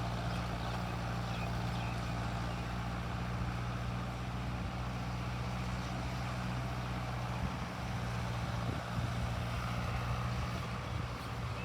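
Mahindra Arjun Novo 605 DI tractor's four-cylinder diesel engine running steadily with a low, even drone that wavers a little from about seven seconds in.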